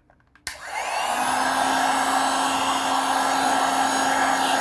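Hot-air blower switched on with a click about half a second in, spinning up to a steady blowing rush with a steady motor hum. It is heating a phone's glued-on screen to loosen it for removal.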